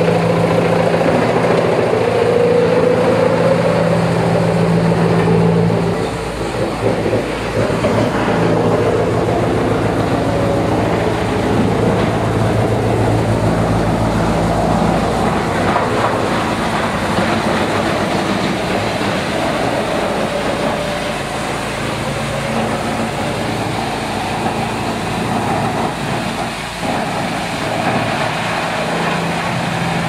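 Industrial wood chipper with a 315 kW main motor running loud and steady while chipping logs: a low motor hum over dense crunching noise. The hum fades about six seconds in, returns, and weakens again for a long stretch in the second half.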